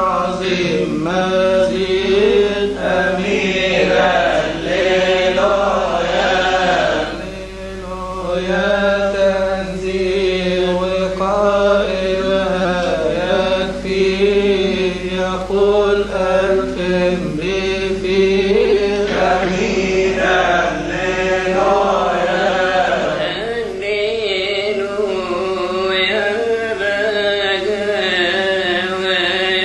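A Coptic monk chanting a praise hymn (madih) solo in a long, wavering melody. A steady low hum lies underneath and stops near the end.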